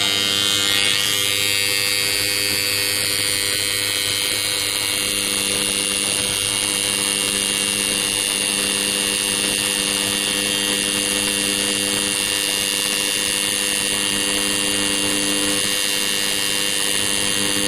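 AC magnetic contactor with its coil energised from the mains, buzzing with a steady low hum: the coil has pulled in and the contactor is working.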